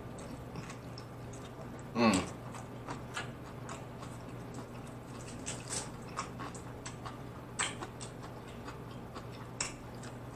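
Close-miked chewing of a pepper: scattered wet mouth clicks and smacks, with a short hummed sound about two seconds in.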